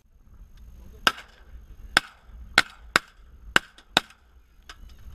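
Volley of shotgun blasts from three hunters firing at teal: six loud shots in quick, uneven succession over about three seconds, then a fainter crack near the end.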